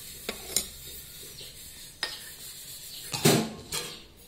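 Clinks and knocks of a stainless-steel mixer-grinder jar and its lid being handled: a few sharp taps, then one louder clatter a little after three seconds in.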